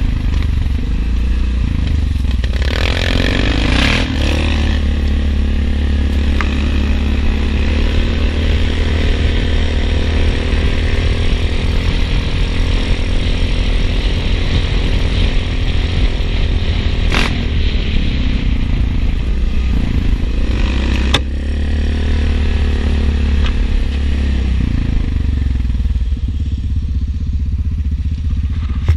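ATV engine running steadily as the four-wheeler rides along a rough dirt trail, with a heavy low rumble. A burst of rushing, scraping noise comes a few seconds in, and two sharp knocks come later.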